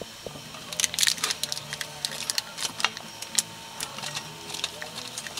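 Irregular sharp crackles and scrapes as a block of pepper jack cheese is unwrapped from its plastic and rubbed on a flat metal hand grater, starting about a second in and loudest near the start.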